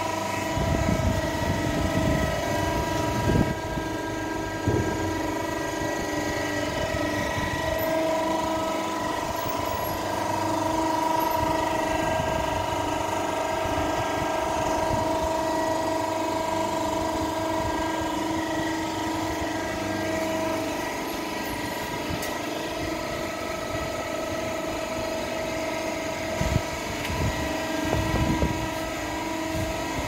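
Hydraulic horizontal cardboard baler running, its pump and motor giving a steady hum with several tones held over one another. Short knocks and clanks from the machine come in the first few seconds and again near the end.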